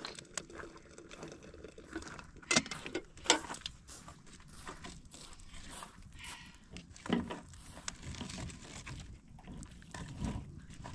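Scattered knocks and clatter from a metal kettle being set down and firewood being pushed into a small wood fire. Two sharp knocks a few seconds in are the loudest, with duller thuds later.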